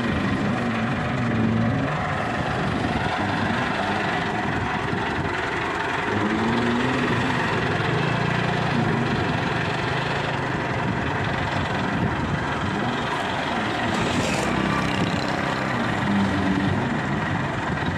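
Massey Ferguson 375 tractor's diesel engine running steadily under load as it pulls a loaded sugarcane trolley over sand, its pitch rising and falling a couple of times.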